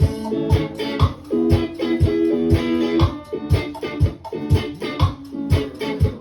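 Music with a steady kick-drum beat about twice a second under sustained plucked-guitar chords.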